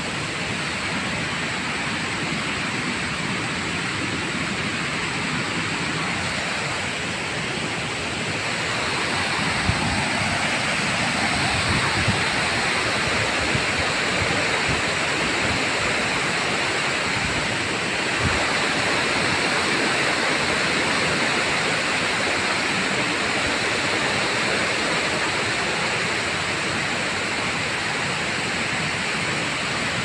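Steady rush of water falling over a ten-metre waterfall, growing a little louder about a third of the way in, with a few soft low bumps.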